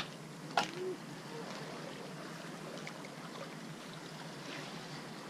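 Steady outdoor hiss of wind and lapping water, with two sharp clicks in the first second.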